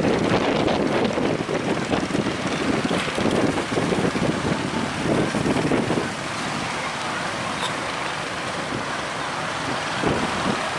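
Strong gusty wind buffeting the microphone, heavier in the first half and easing a little about six seconds in, over a steady rushing background.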